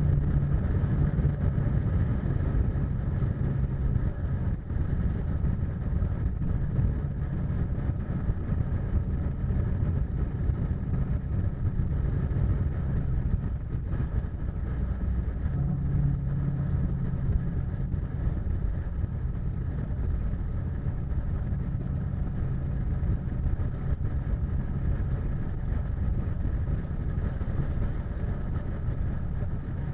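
Car cruising at highway speed: a steady drone of engine and tyre noise with a low hum that swells slightly now and then.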